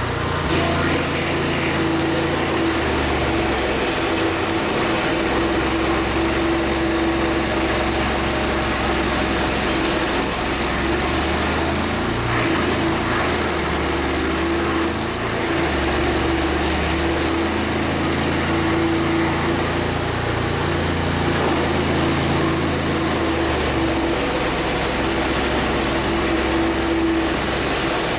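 Small gasoline engine running steadily at a constant speed, its pitch holding even throughout.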